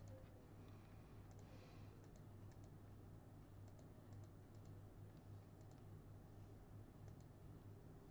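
Faint computer mouse clicks, several in quick pairs and about a second or two apart, over a low steady hum; otherwise near silence.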